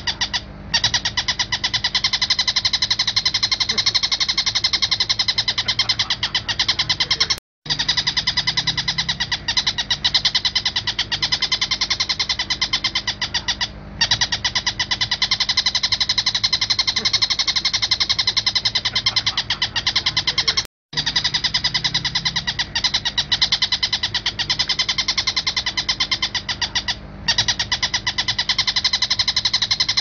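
Oriental dollarbird (tengkek buto) calling in a rapid, harsh chatter of quickly repeated notes, broken by short pauses about every six to seven seconds. It is a looped tutoring recording with pauses, used to teach the call to caged birds.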